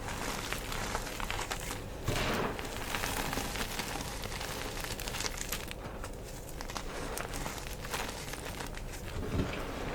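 Thick green-dyed gym chalk being crushed: a continuous crumbling crackle of many small cracks and grains, denser about two seconds in, with a low thud near the end.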